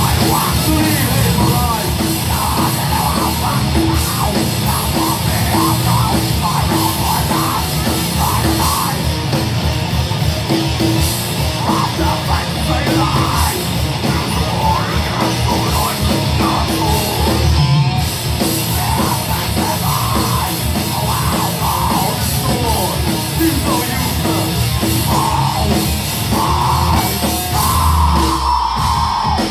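A heavy metal band playing live and loud: distorted guitars and drums in a continuous, dense wall of sound.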